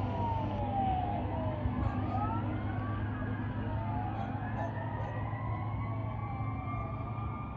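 Several fire apparatus sirens wailing at once, overlapping as their pitches slowly rise and fall, over a steady low engine rumble.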